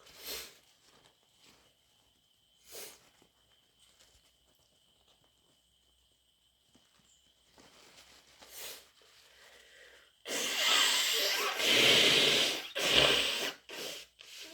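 A person with a bad, snotty cold sniffing a few times, spaced seconds apart. About ten seconds in comes a loud nose-blow in several pushes lasting about three seconds, followed by two quick sniffs.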